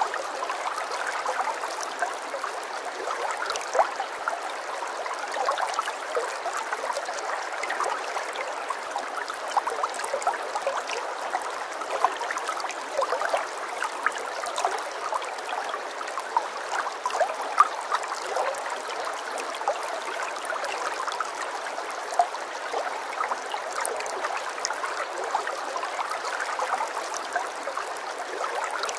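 Running water, a stream trickling and burbling steadily with many small splashes and no deep rumble.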